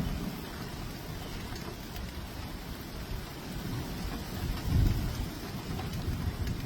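Rain and gusty storm noise during a tornado-producing thunderstorm, with a loud low rumble about five seconds in.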